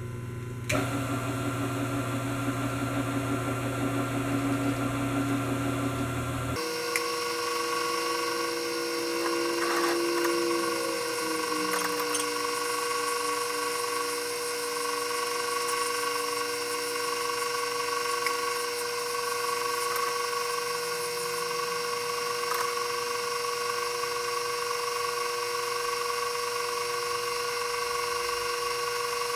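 Milling machine starts up about a second in and runs steadily while a reamer cuts out a bronze bushing in a differential gear. About six seconds in, the audio switches to four times speed, so the machine's steady hum jumps up two octaves and stays there.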